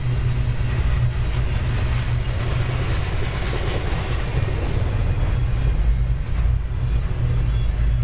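Double-stack intermodal well cars rolling past at speed: a steady, loud rumble of steel wheels on rail.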